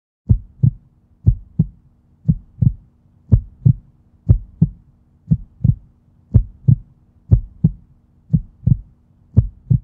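Heartbeat sound effect: paired lub-dub thumps about once a second, ten beats in all, over a faint steady hum.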